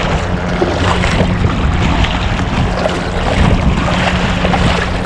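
Wind buffeting the microphone over choppy sea water slapping and splashing around a kayak as it is paddled through the chop, a steady rushing noise with a heavy low rumble.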